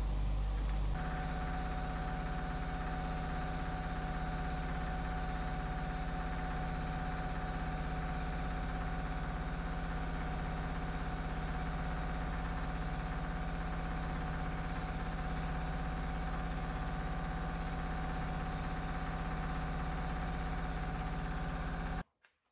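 Steady electric motor hum of woodworking shop machinery running, its tone shifting about a second in. It cuts off suddenly near the end.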